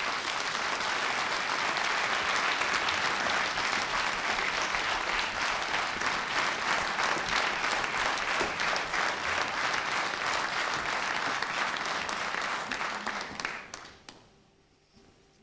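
Theatre audience applauding, a dense steady clapping that dies away near the end.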